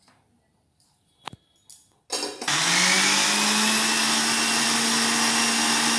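Electric mixer grinder switched on about two seconds in, after a few light clicks. Its motor comes up to speed with a brief rising hum, then runs steadily, grinding a green chutney of chilies, curry leaves and salt.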